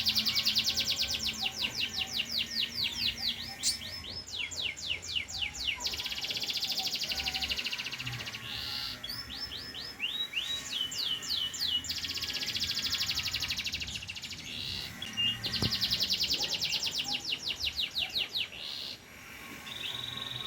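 Domestic canary singing fast, rolling trills and chattering runs of notes, phrase after phrase with short breaks between. The singer is a pied 'panda' canary in full song.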